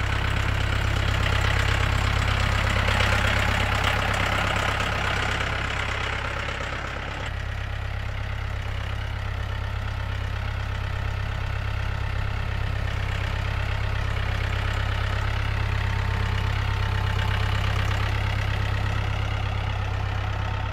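Engine of a vehicle running steadily at low speed as it tows a wheeled wooden chicken coop across a pasture: an even, low drone.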